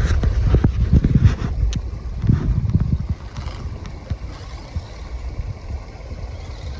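Wind buffeting the microphone, with a run of short knocks in the first three seconds that then thins out to a steadier low rumble.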